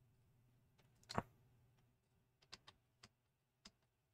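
Faint clicking at a computer: a louder double click about a second in, then four light, separate clicks over the next few seconds.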